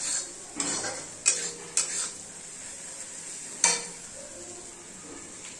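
A steel spatula stirring and scraping spice masala frying in a kadhai, with several sharp clinks of metal on the pan over a steady sizzle.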